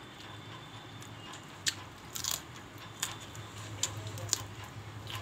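Close-up eating sounds: a person chewing a mouthful of cooked cauliflower, with a few sharp wet mouth clicks and smacks at irregular moments.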